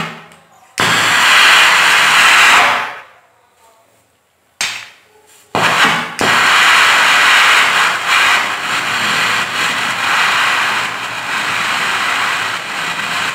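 Homemade calcium-carbide (acetylene) gas torch jetting gas hard through its needle nozzle with a loud hiss, under high pressure. The hiss cuts off suddenly twice in the first few seconds and comes back in short rushes, then runs steadily from about six seconds in.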